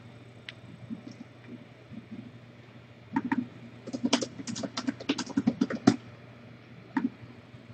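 Computer keyboard being typed on: a quick run of key clicks from about three to six seconds in, with a few single clicks around it, over a low steady hum.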